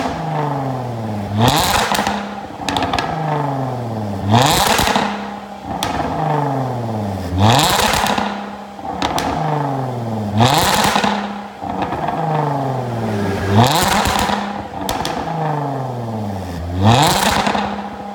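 Jaguar F-Pace's 3.0-litre supercharged V6 breathing through an Fi Exhaust valvetronic exhaust system, free-revved while standing. There are six sharp blips about three seconds apart, each rising quickly and falling back slowly to idle.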